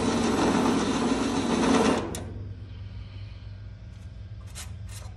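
A motor-driven machine runs with a loud, busy mechanical buzz and cuts off abruptly about two seconds in, leaving a low steady hum and a couple of sharp clicks near the end.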